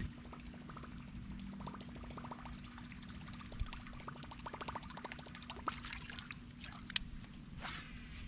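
Small splashes, drips and trickling of water at a kayak, with runs of light ticks and a steady low hum underneath.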